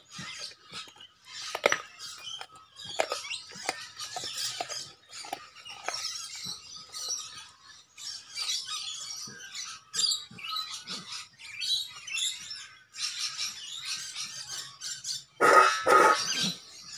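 Staffordshire bull terrier gnawing a meaty bone, with short wet clicks and crunches scattered through. Near the end it laps water from a metal bowl, the loudest sound.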